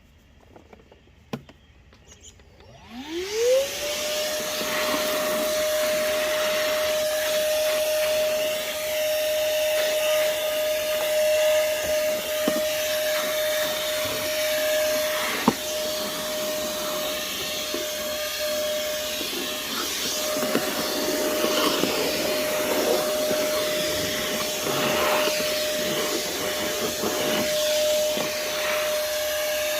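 Moosoo 18 V cordless shop vacuum switched on about three seconds in: its motor whines up in pitch within a second, then runs steadily with a high whine over the rush of air. A few short clicks and knocks come through while it runs.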